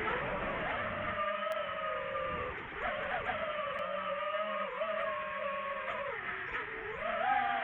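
FPV quadcopter's motors and propellers whining, the pitch dipping and rising several times as the throttle changes.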